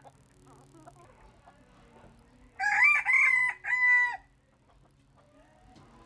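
A bantam rooster crows once, a three-part cock-a-doodle-doo about two and a half seconds in, lasting about a second and a half.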